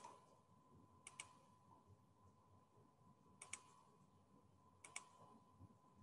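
Near silence with four faint double clicks, spaced one to two and a half seconds apart, over a faint steady high tone.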